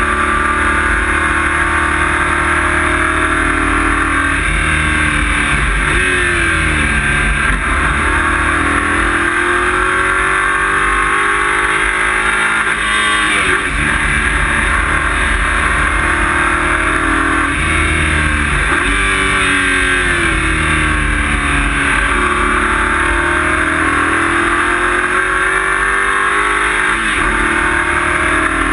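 Race-car engine heard from inside the cockpit, loud and continuous. Its revs climb and fall over and over, with a sharp drop every several seconds.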